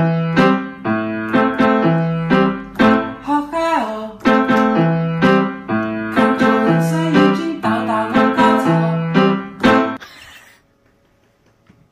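Piano music, a tune of evenly struck notes at about two a second, stopping about ten seconds in.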